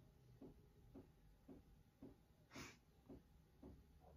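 Near silence: quiet room tone with a faint soft tick about twice a second and one short hiss a little past halfway.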